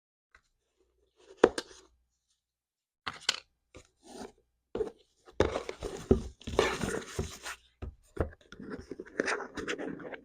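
Unboxing sounds from paper packaging being handled. There is one sharp knock about a second and a half in, then a few clicks, and then steady rustling and scraping of paper and box through the second half.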